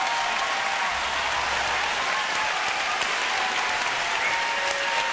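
Large audience applauding steadily, with faint cheers over the clapping.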